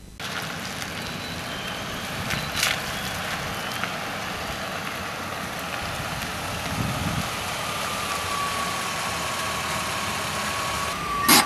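Ford Escape SUV rolling slowly across wet pavement: engine running with a steady hiss of tyres on the wet asphalt. A faint held tone comes in during the last few seconds, and a sharp click sounds just before the end.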